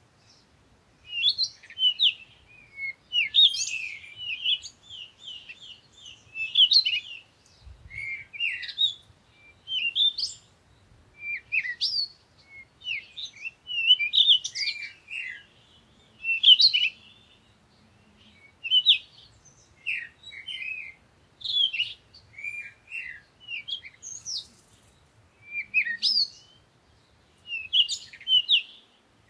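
Bird chirping in quick high-pitched phrases of short up-and-down notes, a burst every second or two.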